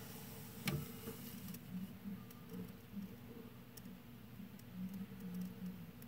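Faint quiet room sound with a low steady hum, one sharp click a little under a second in, and a few faint scattered ticks later.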